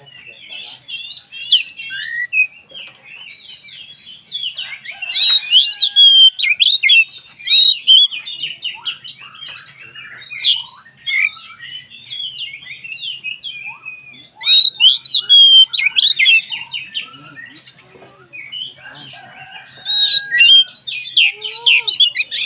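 Oriental magpie-robin (kacer) singing vigorously: a rapid, varied stream of sharp chirps and whistles, coming in loud passages of a few seconds with quieter chattering between them.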